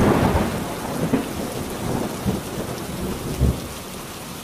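Thunderstorm sound effect: thunder breaks loudly over steady rain and rolls on, swelling a few more times before fading near the end.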